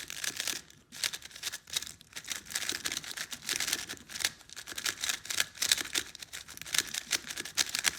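A brand-new, maglev Tornado V3 Pioneer 3x3 speed cube being turned rapidly, its plastic layers making a fast run of soft clicks and swishes. This is its first out-of-the-box turning, with no setup, and it turns really smooth.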